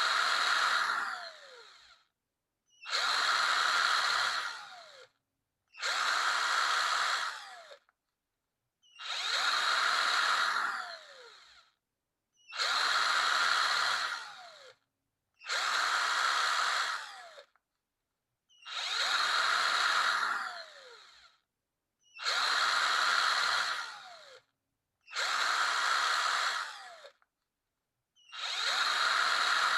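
Electric power drill run in short bursts, about ten times, each about two seconds long with a pause between. Each burst starts at full speed and ends with a falling whine as the motor spins down after the trigger is released.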